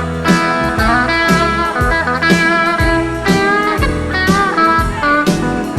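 Country band playing an instrumental passage: guitars, including gliding steel-guitar notes, over bass notes on a steady beat.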